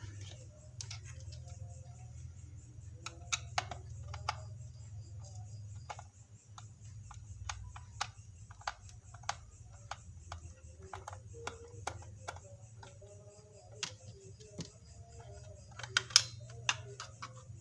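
Scattered plastic clicks and taps from handling a toy RC helicopter's remote control, the loudest pair near the end, over a low steady hum.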